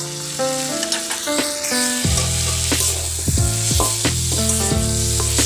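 Fusilli pasta sizzling in a hot iron karahi as a metal spatula stirs it and scrapes against the pan with scattered clicks, over background instrumental music.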